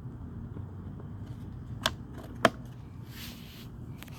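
Two sharp clicks about half a second apart, made while handling the lawnmower's parts after fitting the new air filter, followed by a brief soft rustle over a low steady hum.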